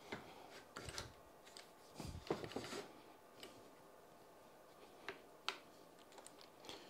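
Scattered faint clicks and a few soft knocks from a metal bicycle repair stand being handled, with a short cluster of thumps and clicks a couple of seconds in and two sharp clicks near the end.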